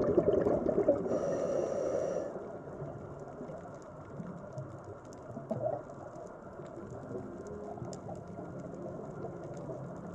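Underwater ambience picked up by a dive camera on a coral reef. A loud rushing wash fades about two seconds in, leaving a quieter steady murmur with faint scattered crackles.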